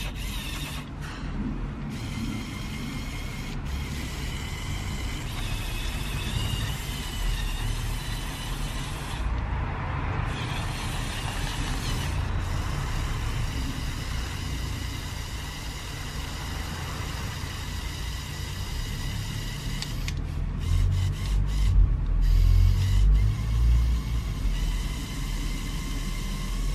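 Electric motors and plastic gears of a Lego Technic Volvo L350F wheel loader whining as the bucket arm lifts and tilts, the whine stepping in pitch now and then. A low rumble underneath grows into heavier low thumps about twenty seconds in.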